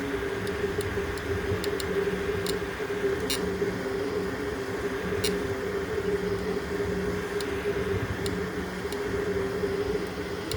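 A 3D printer running: a steady mechanical hum with two held tones over a fan-like hiss, and a few faint clicks now and then.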